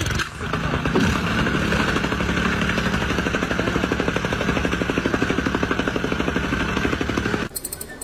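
A loud machine or engine running with a rapid, even pulsing, cutting off suddenly near the end.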